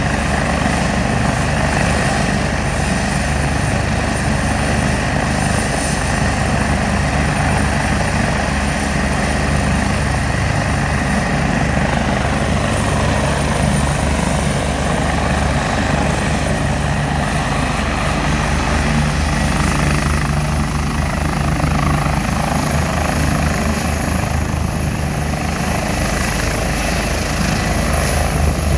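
Turbine helicopter running on the helipad and lifting off: a steady heavy rotor chop under a high turbine whine. The whine climbs slightly in pitch in the second half as power comes up for take-off and the helicopter rises into a hover.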